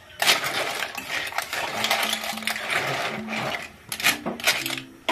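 Clams in their shells rattling and clattering against each other and an aluminium pan as they are stirred with a spatula: a dense scraping clatter with many sharp clicks that eases off just before the end, then a few last clicks.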